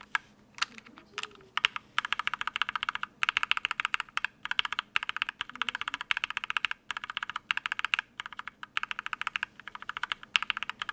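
Keys on a KBD67mkii mechanical keyboard with a brass plate and GMK keycaps, fitted with lubed and filmed linear switches (a Mauve and an H1), pressed over and over to compare their sound. There are a few separate clacks at first, then fast runs of keystrokes in bursts with brief pauses.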